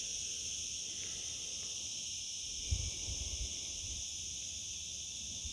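Steady, high-pitched chirring of insects, crickets or cicadas, in two unbroken high tones, with a brief low thump just before three seconds in.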